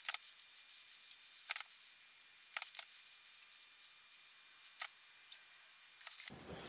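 Scattered light clicks and taps of a dial height gauge and small metal blocks being handled, slid and set down on a granite surface plate, about six in all with a small cluster near the end. A steady low background noise comes in just before the end.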